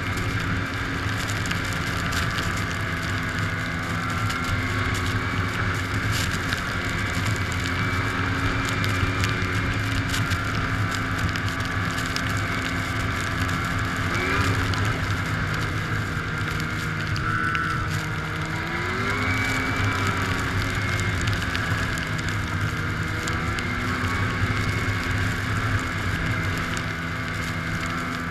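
2006 Arctic Cat Sabercat 700 snowmobile's two-stroke twin engine running steadily at speed. The revs dip and climb back briefly about halfway through and again a few seconds later.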